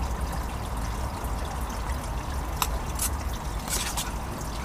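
Steady trickling, like running water, over a low rumble, with a few light clicks about halfway through.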